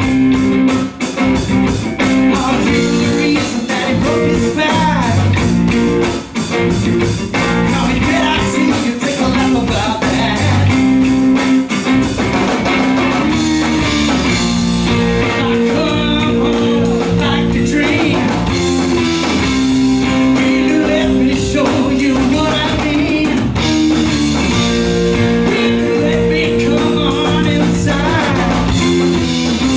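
Rock band playing live: guitar-driven blues-rock with singing.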